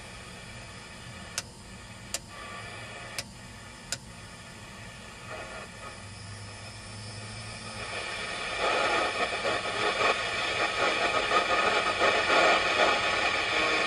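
Midland 5001z AM CB radio: four sharp clicks from its controls in the first few seconds, then the speaker's static hiss swells up loud about eight seconds in as the volume/squelch knob is turned.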